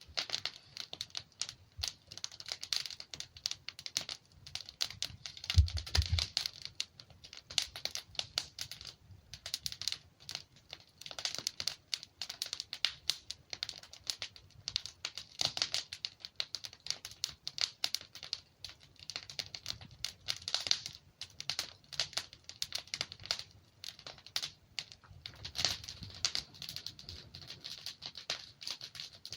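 Wood fire crackling and popping steadily, with dense irregular snaps and a louder low thump about six seconds in.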